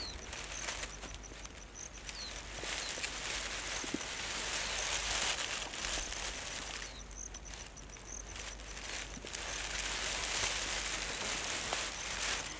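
Rustling of leaves and twigs as a leopard works through dense tangled brush, swelling and fading in waves, over a faint steady insect trill with a few short bird chirps.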